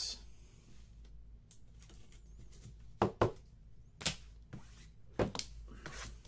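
Several light knocks and taps as card boxes and packaging are handled and set down on a tabletop. They come irregularly from about three seconds in.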